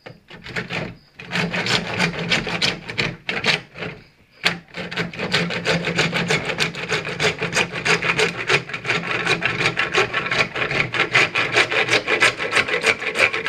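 Handsaw cutting through PVC pipe with fast back-and-forth rasping strokes, pausing briefly about a second in and again around four seconds before carrying on steadily.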